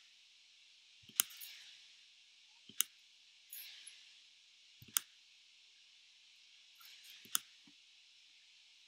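A few separate clicks of a computer's pointer button, each a second or two apart, some with a lighter click close beside them, in an otherwise quiet room.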